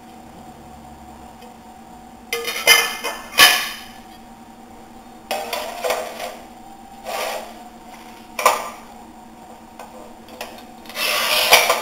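Porcelain stoneware tile and the metal cutting head of a manual tile cutter being handled: a few separate clacks and scrapes of tile and metal on the cutter's bed, starting about two seconds in, with a longer scraping slide near the end as the head is moved into place.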